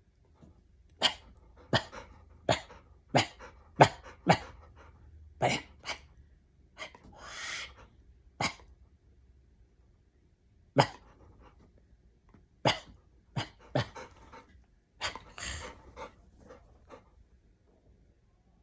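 A dog giving a run of short, sharp huffs and coughs at uneven intervals, with two longer rasping breaths, one about seven seconds in and one about fifteen seconds in.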